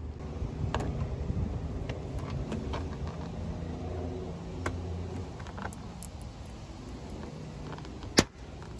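A trim removal tool prying plastic push-pin clips out of a car's under-hood plastic cover: scattered light clicks of tool on plastic, and a sharp snap about eight seconds in as a clip pops loose. A low engine rumble runs underneath, loudest in the first half.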